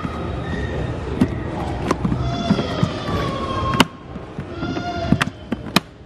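Hard plastic clicks and knocks from a Henry Pet vacuum cleaner's side latches and head being handled, about five sharp ones, the loudest near the middle. Long high-pitched wavering cries sound over them twice.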